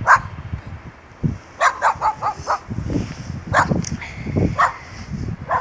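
A dog barking in short, sharp yips: one at the start, a quick run of about five about a second and a half in, then single barks spaced out toward the end.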